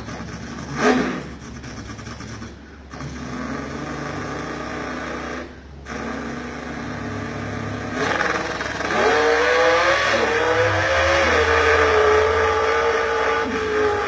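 A man imitating with his mouth and cupped hands a V8 drag car making a quarter-mile run: a lumpy, pulsing idle broken by two short pauses. About eight seconds in comes the launch, louder, with the pitch climbing and dropping through gear changes, holding high, then falling away near the end.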